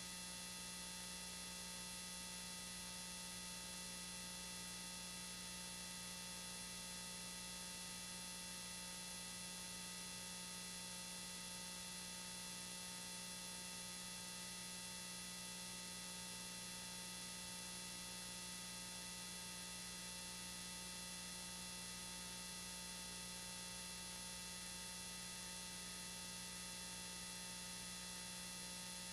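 Steady electrical hum and buzz, several fixed tones at once over a constant hiss, with no other sound: a faulty audio track on an old home-video tape transfer.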